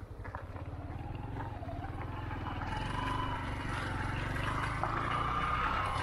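Vehicle engine running while under way, with a whine that rises slowly in pitch and a gradual build in loudness as it picks up speed.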